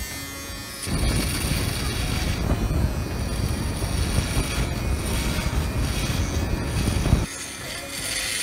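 Kemei rechargeable electric foil shaver running against the face and shaving stubble, a steady motor buzz with a heavy low drone. It comes in about a second in and drops away sharply about seven seconds in.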